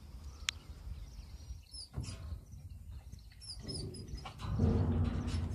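Small birds chirp a few short times over a low rumble. About four and a half seconds in, a louder low hum with a steady pitch comes in and becomes the loudest sound.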